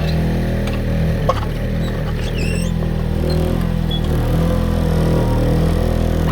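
Komatsu PC03 micro excavator's engine running steadily, with one sharp click just over a second in.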